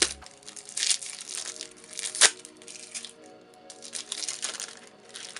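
Paper sticky notes being handled and shuffled, rustling and crinkling irregularly, with one sharp crackle about two seconds in, over soft background music.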